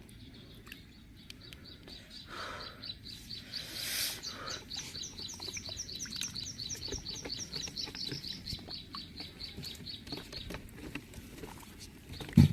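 A small animal calling outdoors with a long, even run of short high chirps, about five a second, which stops near the end. Scattered small clicks run through it, and there is a sharp knock just before the end.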